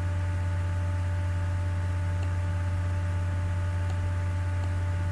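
Steady low electrical hum with hiss on the recording, with a few fainter steady tones above it.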